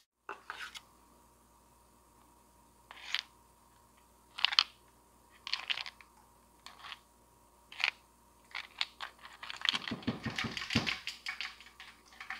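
Hard plastic parts of a Jonsered GT21L string trimmer's housing clicking and knocking as they are handled and taken apart on a workbench. A few separate clicks come about a second apart, then a busier run of rattling near the end.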